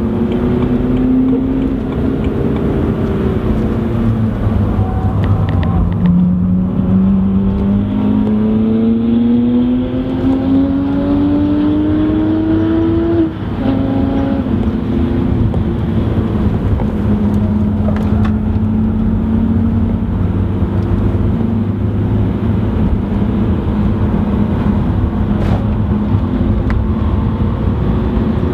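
BMW 118d's four-cylinder turbodiesel heard from inside the cabin at track speed, over steady road and tyre noise. The engine note dips in the first few seconds, then climbs steadily under acceleration until an upshift about 13 seconds in drops the pitch. After that it runs at a steadier, lower note.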